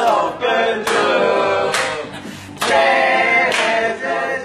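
A group of voices singing together, unaccompanied, in short phrases.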